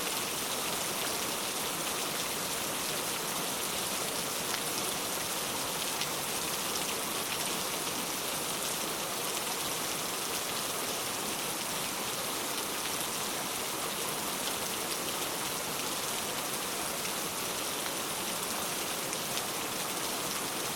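Heavy rain falling steadily: a dense, even wash of noise with faint scattered drop ticks.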